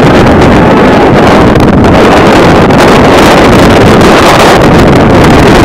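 Loud, steady wind noise from gusts buffeting the camera microphone.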